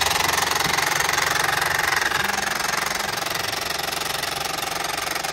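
Homemade paper V-twin engine running on compressed air: a steady, fast rattling clatter mixed with the hiss of air escaping through its valves.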